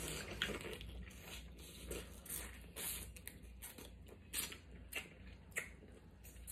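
Eating sounds from snow crab legs in seafood-boil butter sauce: chewing crab meat and sucking sauce off the fingers, with several short wet smacks.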